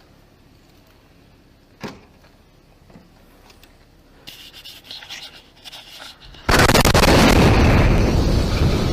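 RV vehicle bomb detonating: a sudden, very loud blast about six and a half seconds in, followed by a long rumble that slowly fades. A single sharp knock comes earlier, just under two seconds in.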